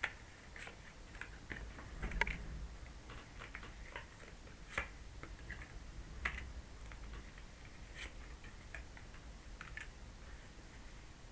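Tarot cards being handled and laid down on a table: faint, irregular light clicks and taps, a few of them louder.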